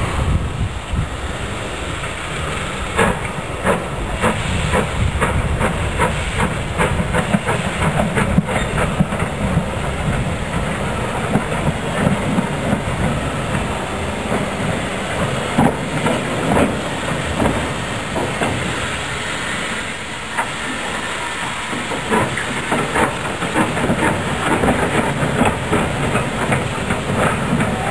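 Small steam tank locomotive running slowly toward the listener: a steady hiss of steam, broken by irregular knocks and clicks from the wheels and running gear on the track.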